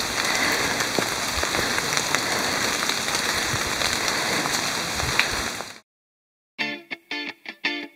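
Steady rain falling on the forest, a continuous even hiss with a few faint ticks, cut off abruptly about six seconds in. After a brief silence, rhythmic strummed guitar music begins.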